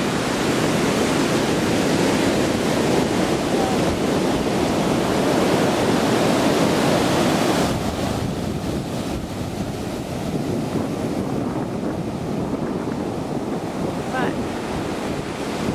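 Ocean surf breaking and washing up the sand, with wind buffeting the microphone. The surf is loudest in the first half and eases off at about eight seconds.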